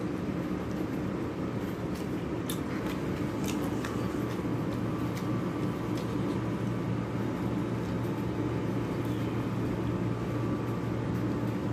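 Steady low machine hum, with a few faint clicks as flatbread is torn and eaten by hand.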